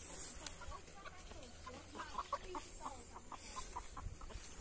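Chicken clucking faintly, a quick run of short clucks about two seconds in.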